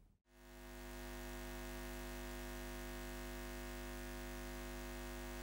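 Steady electronic drone that fades in during the first second: a strong low hum with a held cluster of steady tones above it, unchanging throughout.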